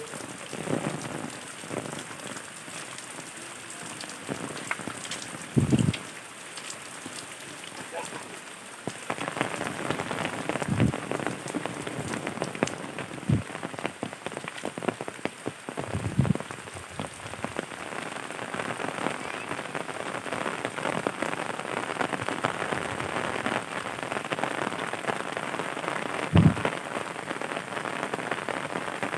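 Heavy rain falling and pattering steadily on surfaces, growing heavier about a third of the way in. A few short dull thumps stand out, the loudest near the end.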